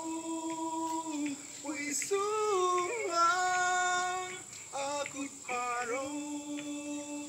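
A voice singing a slow melody in phrases of long, held notes that slide between pitches.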